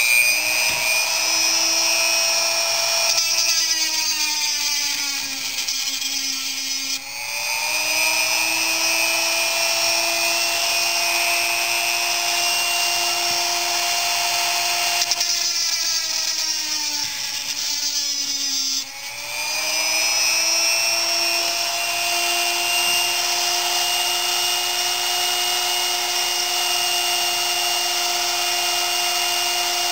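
Dremel rotary tool with a cut-off wheel running at a steady high whine. Its pitch drops twice, for about four seconds each time, as the disc bogs down cutting through stainless steel tubing, then climbs back up.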